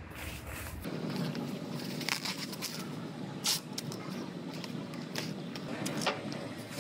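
Plastic masking film rustling under a hand and masking tape being pulled off the roll and pressed down, with several short sharp tape rips over a steady shop background noise.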